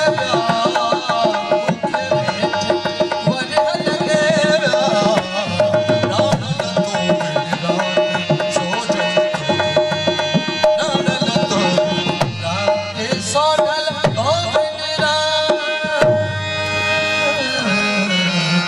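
Sufi devotional song: a man singing over sustained harmonium notes while a two-headed dholak drum is played by hand in a steady, busy rhythm.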